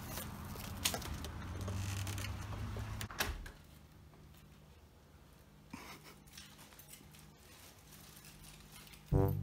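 Keys jangling and clicking in a front-door lock as the door is unlocked and pushed open, with a sharp click about a second in and a louder knock of the door at about three seconds. Then a quiet stretch with faint rustles and ticks, and brass music starts near the end.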